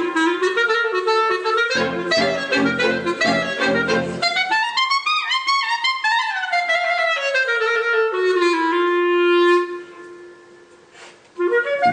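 Clarinet solo with orchestra accompaniment. About four seconds in the accompaniment drops away and the clarinet plays alone, a run climbing and then falling, ending on a long held note near ten seconds; the music starts again just before the end.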